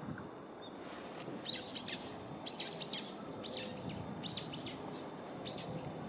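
Common kingfisher giving a rapid series of high, thin calls, each sweeping downward, in quick runs of two or three from about a second and a half in. A steady background rush lies underneath.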